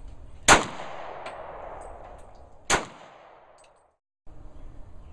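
Two gunshots about two seconds apart, each followed by an echo that fades out, with a few faint distant cracks between them. The sound drops out completely for about half a second near the end.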